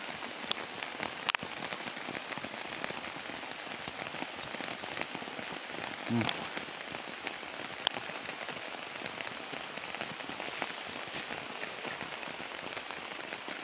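Steady rain falling, with scattered sharper drop ticks close by.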